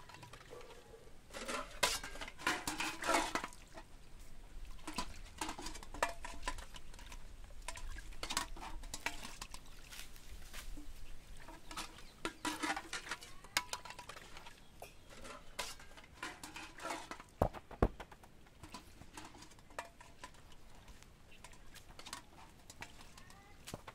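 A stiff coconut-rib broom sweeping a dirt yard in clusters of scraping strokes, then a football nudged and kicked on the packed earth, with one sharp thump about eighteen seconds in.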